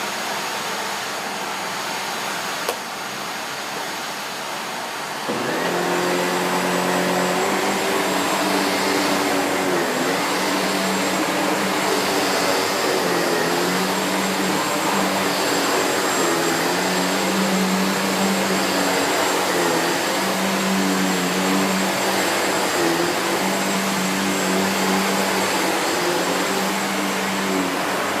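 SEBO Felix bagged upright vacuum cleaner running, with a click about three seconds in. About five seconds in it gets louder, and a hum swells and fades every couple of seconds.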